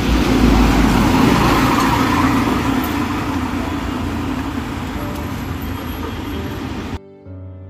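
Road traffic noise from vehicles passing on a city street, loudest at the start and slowly fading away, then cut off suddenly near the end.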